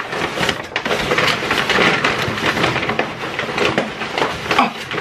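Paper takeout bag crinkling and rustling loudly as a hand rummages inside it, a dense crackle of sharp little clicks.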